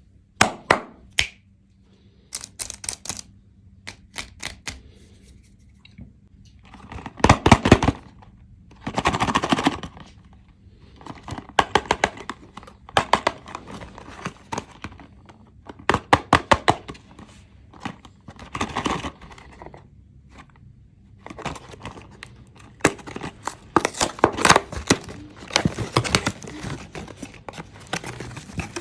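Crackling and tearing of Kinder Joy eggs' plastic wrappers being unwrapped by hand: clusters of sharp crinkles and taps that come and go, with short pauses between.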